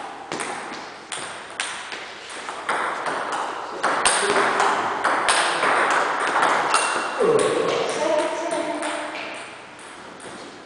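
Table-tennis rally: the celluloid ball clicks sharply off bats and table in a quick back-and-forth, about two or three hits a second. The hits stop about seven seconds in, and a player's voice calls out briefly.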